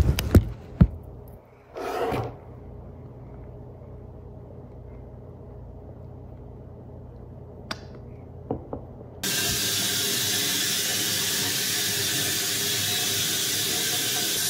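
Water running steadily from a bathtub faucet into the tub while a small dog is washed, starting abruptly about nine seconds in. Before that, only a low room hum with a few faint clicks.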